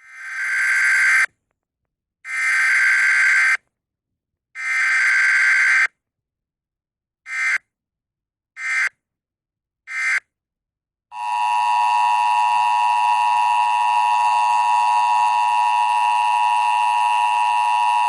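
Emergency Alert System tones. First come three bursts of buzzing digital data, each about a second long, then three much shorter data bursts. About eleven seconds in, the steady two-tone EAS attention signal starts and holds.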